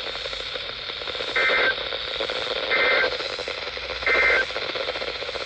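Three short bursts of EAS (SAME) digital data tones, about 1.3 seconds apart: the end-of-message signal that closes a NOAA Weather Radio alert broadcast. They play over steady radio hiss.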